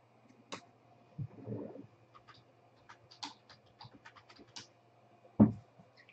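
Typing on a computer keyboard: a run of quick, light key clicks over a couple of seconds. A dull thump near the end, the loudest sound, with a softer knock and rustle about a second in.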